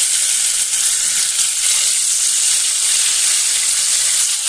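Fish steaks rubbed with salt and turmeric sizzling steadily as they shallow-fry in hot oil in a frying pan.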